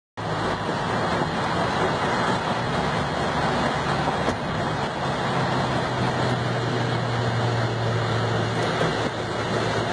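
Steady road and wind noise of a car driving at speed alongside the train, with a low hum underneath.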